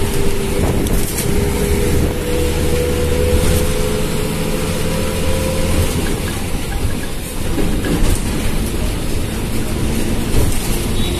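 Inside a moving bus: a steady engine hum with road noise, the engine note climbing slowly over the first six seconds as it pulls along.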